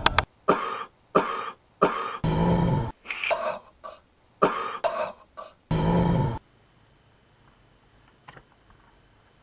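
A person in a hard coughing fit: about nine harsh coughs and throat-clearing hacks in quick succession, some of them long and voiced, stopping abruptly about six seconds in.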